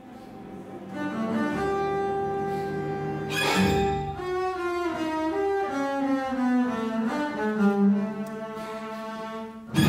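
String orchestra of violins, cellos and double basses playing: quiet low held notes swell about a second in, a sharp accent comes about three and a half seconds in, then moving lines with sliding pitches, and a sudden loud accented chord hits right at the end.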